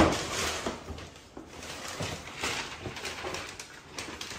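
Wrapping paper rustling and crinkling and cardboard gift boxes being handled, in irregular bursts, with one sharp knock right at the start.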